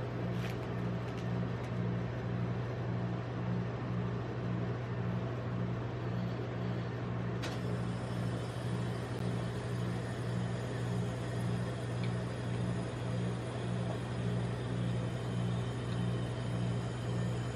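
Steady low hum of a rolled-ice-cream cold plate's refrigeration compressor, with a faint pulse about twice a second. About seven and a half seconds in comes one short, sharp snap as a Cadbury Twirl chocolate bar is broken in half.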